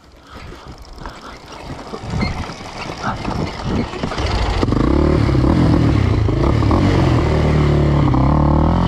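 KTM 525 XC quad being bump-started: rolling over rough ground with irregular knocks and rumble, then about halfway through its single-cylinder four-stroke engine catches and runs loudly, the revs wavering a little. It is push-started in gear because the starter motor appears to have died.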